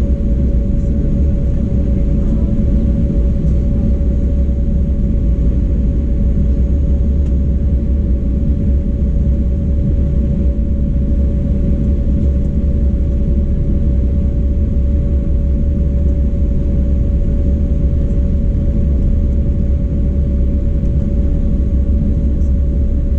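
Cabin noise inside an Embraer 195 taxiing: the GE CF34 turbofans at low taxi power and the wheels rolling give a steady low rumble, with a constant mid-pitched whine over it.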